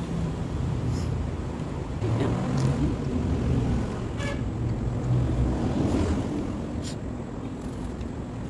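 Low, steady rumble of wind on the microphone, swelling for a few seconds in the middle, with a few brief clicks.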